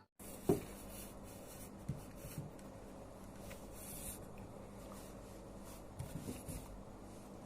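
Faint room tone with a low steady hum. A few soft taps or rustles sound over it: one about half a second in, one near two seconds, and a short cluster around six seconds.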